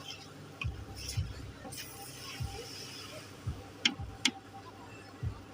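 Cooking noise at a noodle stall: irregular low thumps, and two sharp metallic clicks about four seconds in, as of a utensil knocking a wok or pan.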